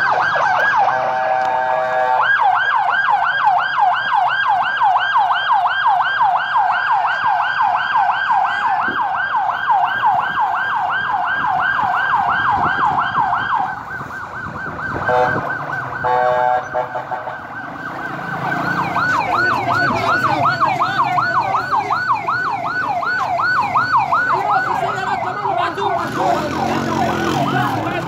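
Ambulance siren in a fast yelp, its pitch sweeping up and down about three times a second. It breaks off for a few seconds midway, with short steady tones, then yelps again.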